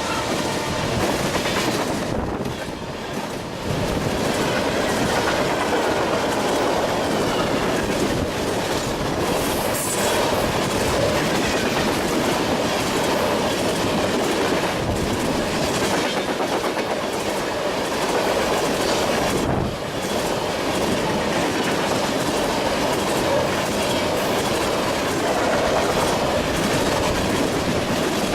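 A train rolling past, its railcar wheels clattering steadily over the rails, with a brief lull about two seconds in and another about two-thirds of the way through.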